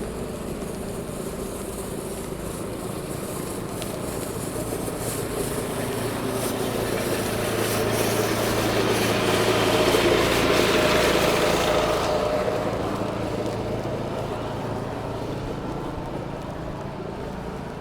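A motor vehicle passing close by on a city street: its engine and tyre noise swell to a peak about halfway through and then fade, over a steady low hum of traffic.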